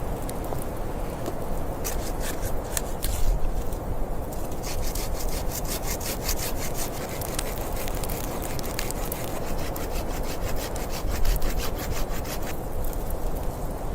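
Wood being cut with a hand saw: a steady rasping with many small crackles through most of it.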